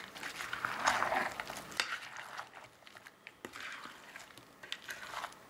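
Spatula stirring a thick, creamy fruit-and-nut salad in a glass bowl, with light clicks of the spatula against the glass. Louder for the first two seconds, then softer.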